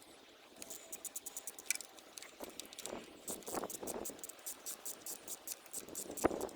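Ratchet spanner clicking rapidly as it undoes a thermostat housing bolt, with a sharp knock near the end.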